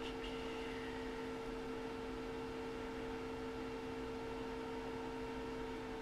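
Steady electrical hum with two held tones over a faint even hiss: background room tone.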